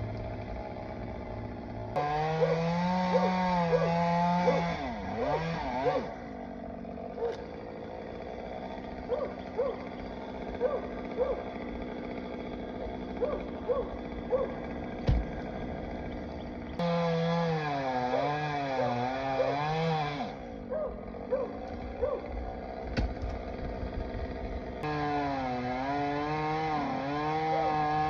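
Chainsaw running three times at high revs, about two seconds in, midway and near the end, its pitch wavering as it cuts into a limb. Between the cuts it idles, with short blips of the throttle.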